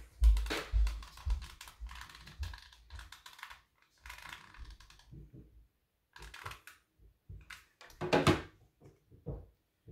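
Hot glue gun being handled, its trigger clicking and its body knocking lightly as glue is put onto a paper ear. The clicks come thickly for the first few seconds, then thin out, with one louder knock about eight seconds in.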